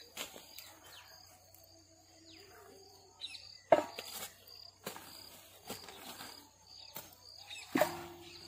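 A short-handled hoe strikes into dry, clumpy soil about six times at irregular intervals, digging out an elephant foot yam. The loudest strike comes a little past halfway. Small birds chirp over it in short, repeated high notes.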